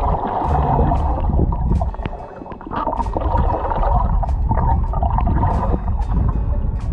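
Underwater sound picked up by a submerged camera: a muffled rumble and gurgling of water moving around it, with scattered sharp clicks, dipping briefly a little after two seconds in.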